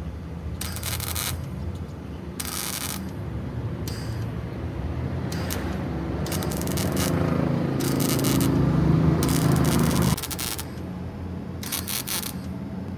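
Electric arc welding on a truck's rusty steel body panel: repeated short bursts of crackling arc, each under a second, over a low buzzing hum that builds from about six seconds in and cuts off suddenly a little after ten seconds.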